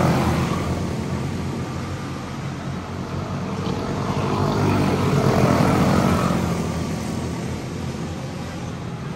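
Quarter midget race cars' small single-cylinder Briggs & Stratton Animal engines running at racing speed. The buzz swells and fades twice as the cars come round the track.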